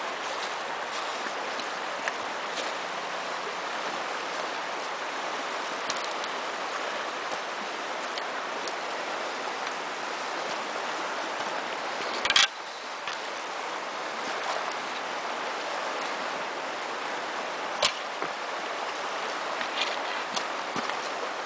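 Steady rush of flowing river water, with a few sharp knocks standing out above it: the loudest about twelve seconds in, another about six seconds later, and fainter ticks in between.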